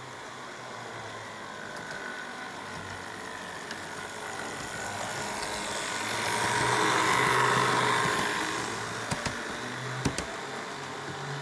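Model Sprinter railcars running on the layout's track: a steady motor whir and wheel rumble that grows loudest as one passes close by, about six to eight seconds in. A few sharp clicks follow near the end.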